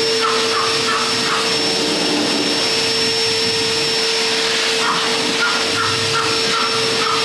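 Vacuum cleaner running steadily with a constant whine, its hose nozzle drawn along the wall corners to suck up dust.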